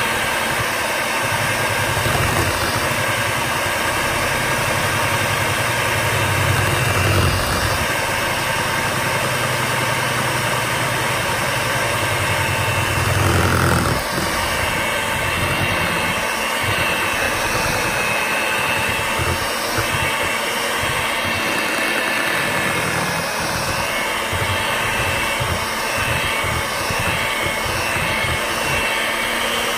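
Electric hand mixer running steadily, its beaters whipping a chilled, set mixture of shea butter and oils into a cream in a stainless steel bowl. Its low hum drops away about halfway through while the whirring carries on.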